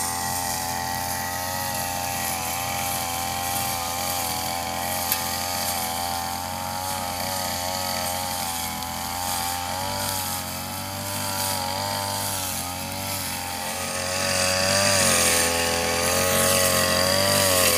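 Backpack brush cutter's petrol engine running at cutting speed, its pitch wavering up and down as the throttle shifts while it cuts long grass; it gets louder about three quarters of the way through.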